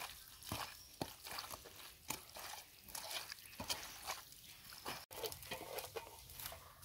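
A hand squishing and kneading raw chicken pieces in a wet masala marinade, making irregular soft, wet squelches.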